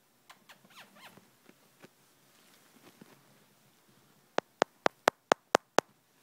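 A quick run of seven sharp taps on the iPhone, close to its microphone, about four a second, after a few seconds of faint light scratching and pattering from a lovebird moving about.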